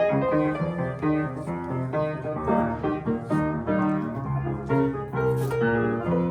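Piano playing a melodic passage, a run of notes changing several times a second over sustained chords.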